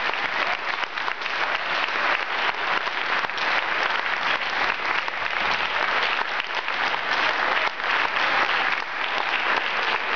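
An audience applauding: dense, steady clapping.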